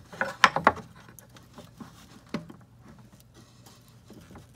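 A wooden clamping block knocking against the wooden table as it is pressed into place: a quick cluster of knocks in the first second, then faint scattered taps and clicks.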